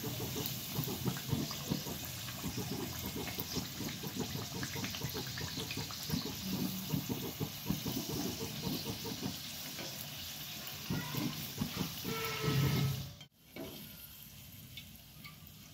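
Maida-dough karanji deep-frying in hot oil in a kadhai: continuous sizzling with crackling bubbles. About 13 seconds in the sound cuts off abruptly and returns much quieter.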